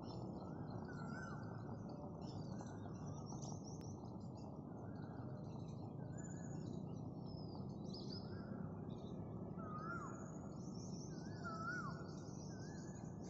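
Birds chirping and calling over a steady background hiss, with repeated whistled notes, two of which drop sharply in pitch near the end.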